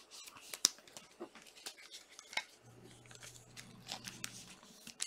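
Glossy Panini Prizm trading cards handled and flipped through by hand: faint, irregular short clicks and slaps as the cards slide off one another. A faint low hum runs through the middle of the stretch.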